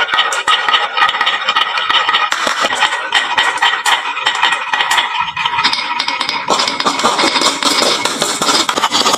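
Many glass marbles rolling and clacking down a wooden marble-run slope, a dense stream of clicks over a ringing rattle. From about five seconds in a lower rumble joins, as marbles roll along and into the toy trucks.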